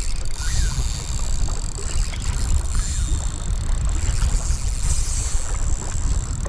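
Strong gusty wind buffeting the microphone: a loud, uneven low rumble with hiss over it.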